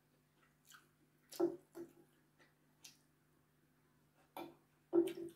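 A person eating noodles: a few short, wet slurping and chewing sounds, the loudest about a second and a half in.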